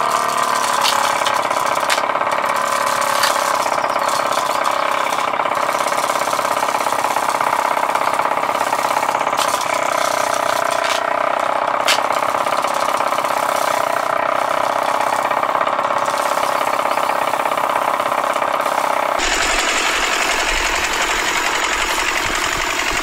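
Small motor of a miniature model tractor running steadily, spinning a tiny rice-threshing drum through rubber-band belts, with a few sharp clicks as rice stalks are fed in. About 19 s in the sound turns hissier, with a low rumble underneath.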